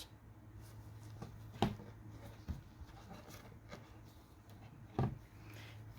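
Faint handling of a children's sound-button book: a few soft clicks and taps, the loudest about five seconds in, over a steady low hum.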